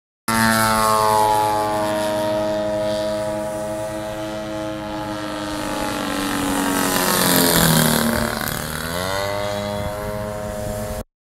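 Radio-controlled model airplane's engine and propeller running in flight, its pitch sliding steadily lower as it flies off. About three-quarters of the way through it grows loudest, dips in pitch and then climbs again as the plane passes close. The sound cuts off suddenly near the end.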